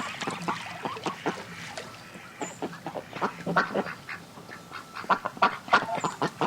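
Ducks quacking: a rapid run of many short calls, busiest around the middle and again near the end.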